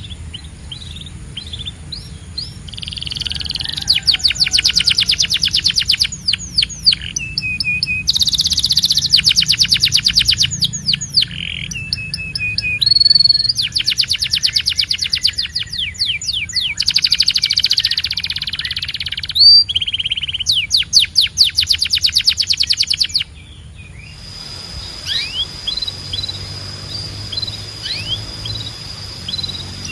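Canary singing: long, fast trills of rapidly repeated high notes, broken by short pauses and a few held whistled tones. About 23 seconds in the trilling stops abruptly and only scattered chirps follow.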